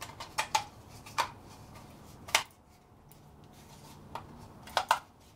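Small plastic clicks and snaps from a wireless mouse being handled as its battery cover is fitted back on. About half a dozen short, sharp clicks come spaced out, two close together near the end, with quiet handling noise between.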